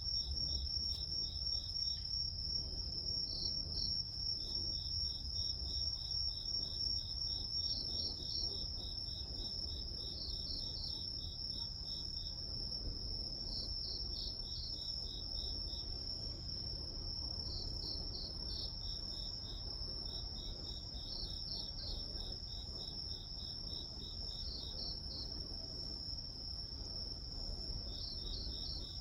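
Grass insects such as crickets chirping: one steady high trill throughout, with trains of rapid pulsed chirps coming in every few seconds, over a low steady rumble.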